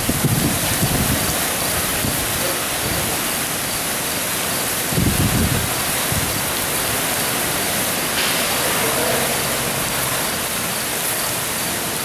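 Heavy wind-driven rain and strong storm wind: a dense, steady rush of rain. Low rumbles swell near the start and again about five seconds in.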